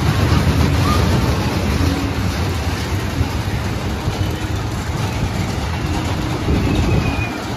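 Kiddie roller coaster train rumbling along its steel track close by, with faint fairground voices behind it.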